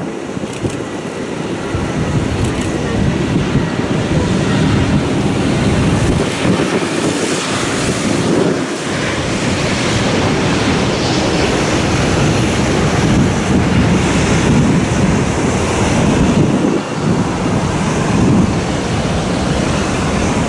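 Twin-engine jet airliner's engines at takeoff power during the takeoff roll: a steady rushing roar that grows a little louder over the first few seconds, with wind on the microphone.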